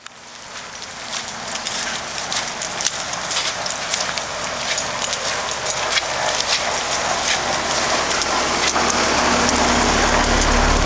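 Steady rain falling, with many sharp drop ticks close to the microphone. Under it the steady low hum of a 2011 Broan 3-ton heat pump's outdoor unit with its Copeland scroll compressor, growing louder near the end.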